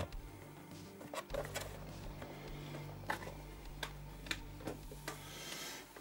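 Faint scattered clicks and taps of toy packaging being handled and set aside, over a low steady hum.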